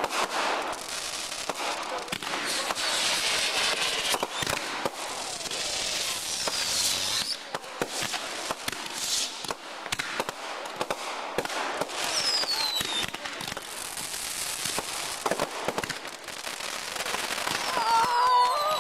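Fireworks display: a dense, continuous run of bangs and crackles from aerial bursts, with a few descending whistles.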